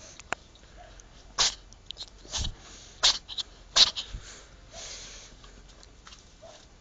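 Domestic cat sneezing about four times in quick succession: short, sharp, hissy bursts over roughly two and a half seconds.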